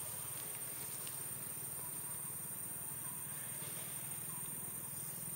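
Steady outdoor background: a thin, high, unchanging whine over a low hum, with a faint short chirp repeating about once a second.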